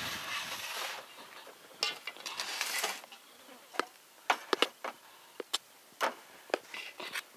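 Damper dough being scraped out of a large stainless steel mixing bowl onto a floured metal bench: brushing and scraping at first, then a string of about nine sharp clinks and knocks of the metal bowl in the second half.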